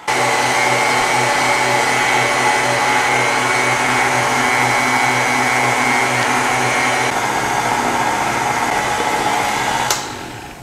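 Tilt-head stand mixer's motor running with its wire whisk beating heavy cream as avocado purée is added. It starts abruptly, runs with a steady hum and stops about ten seconds in.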